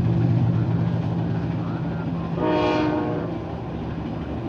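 Steady low engine rumble of passing traffic, with a single horn blast about two and a half seconds in that lasts about a second.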